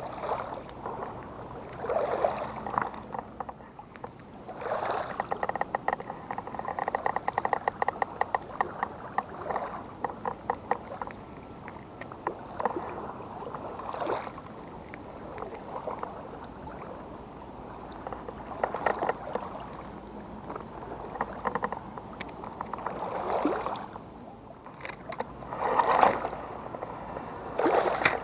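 Lake water lapping and splashing against the shore in repeated swells every few seconds. A fast run of fine clicks rattles for several seconds near the middle.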